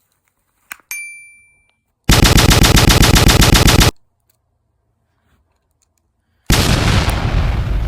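Comedy sound effects laid over small everyday sounds: a click and a bright ding about a second in, then a loud rapid rattling burst of machine-gun fire for about two seconds, and near the end a loud noisy blast that fades.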